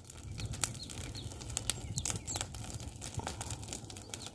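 Dry grass and brush burning, crackling with many irregular sharp snaps and pops.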